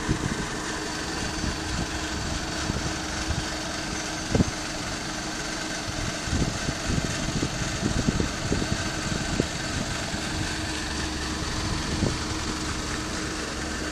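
Engines running steadily, from street traffic and clean-up machinery such as backhoe loaders, with a few short low thumps, the sharpest about four seconds in.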